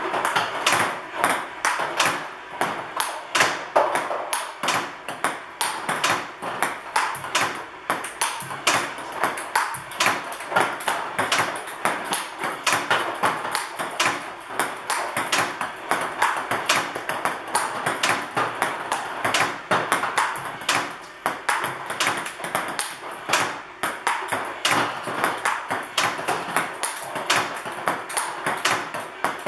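Table tennis balls clicking in a steady, rapid run, several a second: balls fed by a table tennis robot, bouncing on the table, hit back with a paddle and dropping into the robot's catch net.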